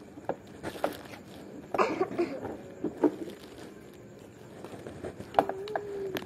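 Scattered light clicks and knocks, with a faint voice about two seconds in and a short steady tone near the end.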